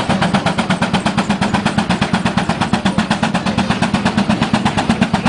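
65 hp Case steam traction engine's exhaust chuffing hard and fast up the stack, about eight sharp beats a second, as it works under load pulling a tractor-pull sled.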